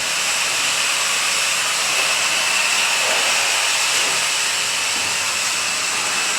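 A loud, steady hiss with no pitch or rhythm, unchanged throughout.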